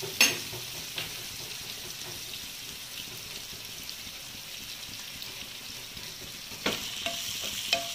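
Sliced onions sizzling steadily in hot oil in a nonstick frying pan as they soften and turn light pink, with a few clicks of a metal spoon against the pan just after the start and near the end.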